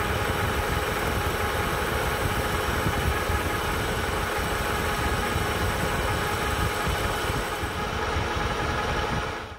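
Metal lathe running under power while a carbide insert tool takes a facing cut across a large spinning metal disc: a steady, even machine drone with a low hum and several steady tones in it. It cuts off suddenly at the end.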